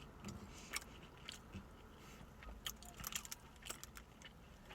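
Close, faint chewing of a mouthful of Brisket Whopper: scattered soft mouth clicks and smacks, more frequent in the second half.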